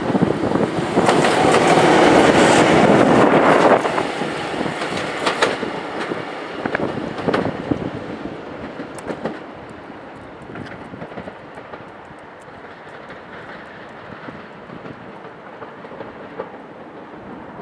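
Diesel locomotive passing close along the platform, loudest in the first few seconds, with wheels clacking over rail joints, then fading away as it recedes.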